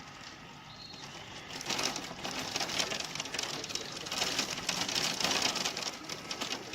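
Pea-size hail falling hard, a dense clatter of many small hailstones striking, which grows louder about two seconds in.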